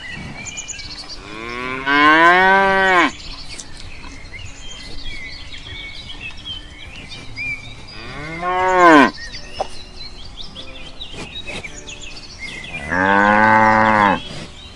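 A cow mooing three times, each moo a long drawn-out call that rises and then falls in pitch, with faint bird chirps in the background between the calls.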